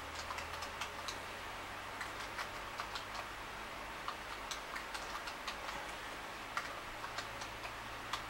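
Computer keyboard keys clicking in uneven runs as an address is typed, a few keystrokes a second, over a steady low hum and hiss.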